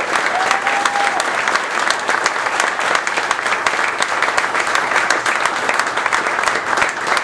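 An audience applauding steadily: many hands clapping together, with a short held note from the crowd about half a second in.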